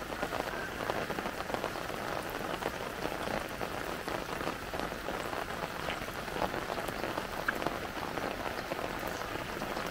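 Steady rain falling on flooded ground and standing water.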